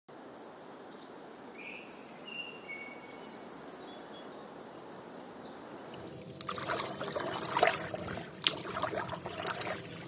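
Quiet lakeside ambience with a few short bird chirps. About six seconds in, water starts splashing and trickling in irregular strokes, a canoe paddle dipping and dripping.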